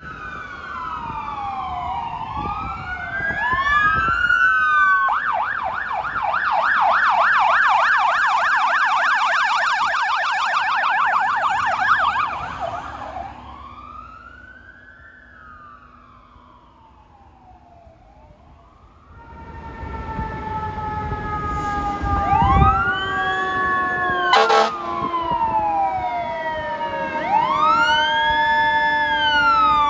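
Fire apparatus sirens: a siren wailing up and down, switching to a fast yelp about five seconds in, then a slow wail that fades as the engine drives away. From about twenty seconds in, a second rig's wailing siren grows louder, joined by a long, slowly falling siren tone and two short loud blasts.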